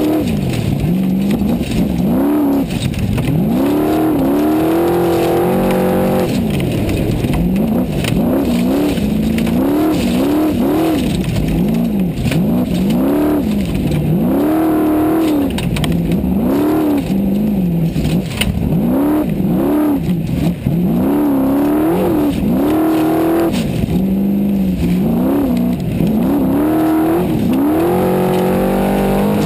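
Formula Offroad competition car's engine heard from inside the car, revving up and dropping back over and over, about once every second and a half, as the throttle is worked through the course, with scattered knocks from the car.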